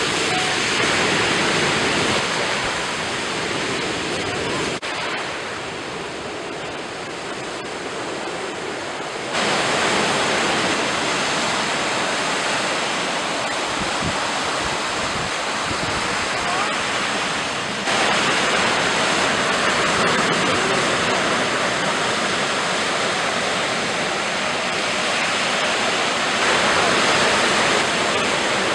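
Sea waves breaking and washing on the shore: a steady rushing surf that drops in level about five seconds in, jumps back up near nine seconds, and rises again abruptly near eighteen seconds, as if separate recordings are joined.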